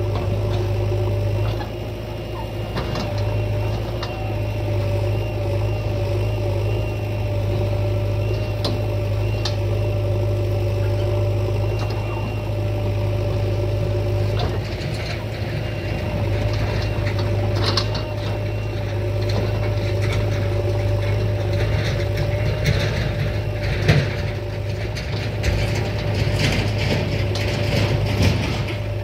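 Diesel engine of heavy farm or earthmoving machinery running steadily, with scattered metallic clanks and rattles that come more often in the second half and one sharp knock near the end.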